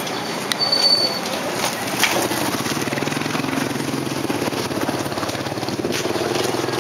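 Small motorcycle engine running steadily amid street noise, setting in about two seconds in. A brief high squeak comes about a second in.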